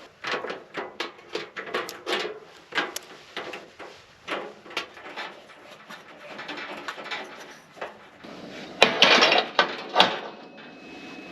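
Knocks, clicks and clatter of camp cooking gear being handled, with a louder burst of noise about nine seconds in.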